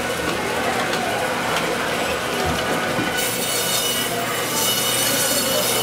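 Butcher's meat band saw running and cutting through a raw leg of meat and bone, a steady whine. Its hiss turns brighter about three seconds in.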